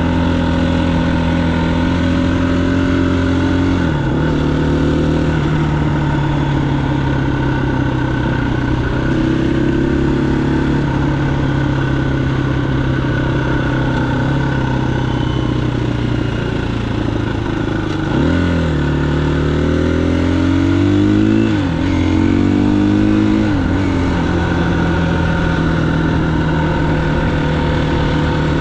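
Motorcycle engine running under way, its note mostly steady, then dropping and climbing again about four seconds in and several times between about eighteen and twenty-three seconds in, as the revs fall and rise.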